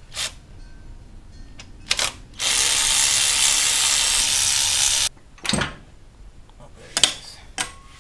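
Cordless ratchet running in one steady burst of nearly three seconds, backing out a loosened A/C compressor mounting bolt, with a few sharp metal tool clicks and knocks before and after.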